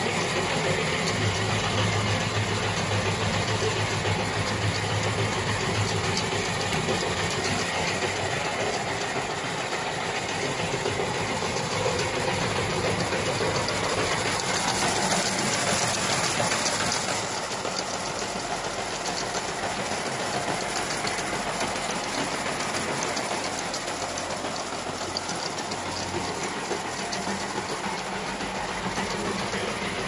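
Wire harness braiding machine running just after start-up: a fast, dense, steady clatter of its bobbin carriers circling the braiding track. It gets slightly quieter about seventeen seconds in.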